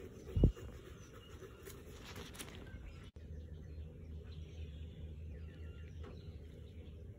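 Nitrile-gloved hands rubbing and pressing a leather handbag, with one dull thump about half a second in. After a cut a little past three seconds, quieter handling noises over a low steady hum.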